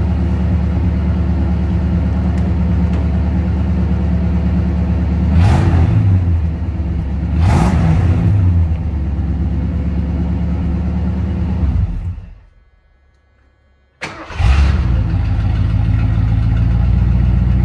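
V8 exhaust of a 1979 Lincoln Continental Mark V running through straight pipes, with the catalytic converters and resonator removed and a Magnaflow muffler fitted. It idles steadily with two quick throttle revs that rise and fall. About twelve seconds in the sound dies away, then it comes back suddenly with a short rev and settles to idle again.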